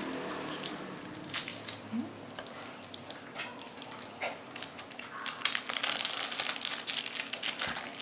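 Clear plastic film crinkling and crackling as it is handled and peeled away from pastry dough, in scattered crackles at first and a denser run of crinkling over the second half.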